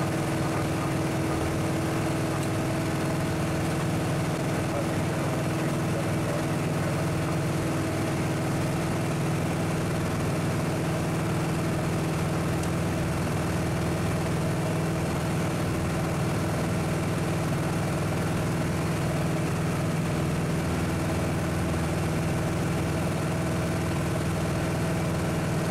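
Piper Archer's single piston engine and propeller droning steadily, heard inside the cabin during the climb-out just after takeoff.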